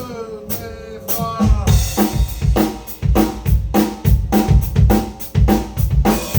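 Drum kit starting a steady groove about a second and a half in, with bass drum and snare hits at roughly two strokes a second.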